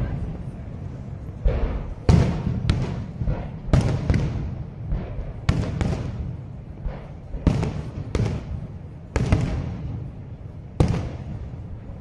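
Aerial fireworks shells bursting: about a dozen sharp bangs at uneven intervals, each trailing off as it dies away.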